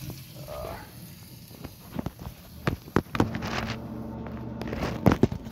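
Handling noise: irregular knocks and clunks, the loudest about five seconds in, with a faint steady hum starting about halfway through.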